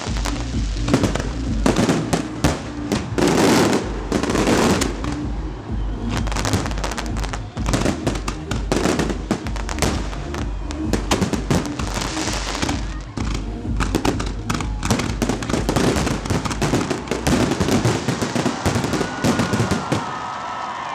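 Fireworks display: a rapid string of bangs and crackling bursts, thickest in the second half, over loud music with a steady bass.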